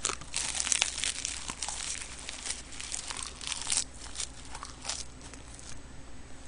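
Crisp roasted seaweed (gim) wrapped around rice being bitten and chewed close to the microphone: dense crackling and crinkling for about four seconds, thinning to a few scattered crackles near the end.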